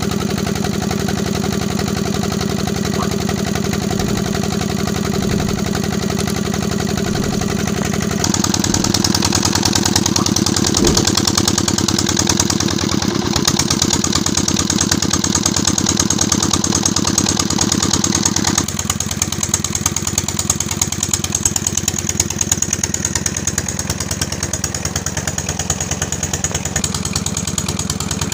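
A 16 HP single-cylinder Peter diesel engine running steadily under load with an even rhythm, belt-driving an irrigation water pump.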